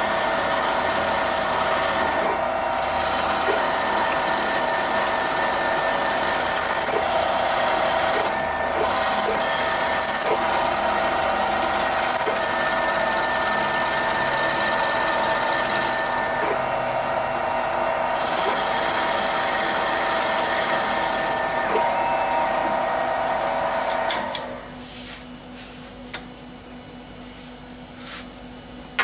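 CNC-converted Central Machinery mill cutting a graphite mold block with an end mill: a steady mechanical whine of several tones that shift every few seconds as the program moves the cutter. The machine stops about 24 seconds in, leaving a few faint clicks.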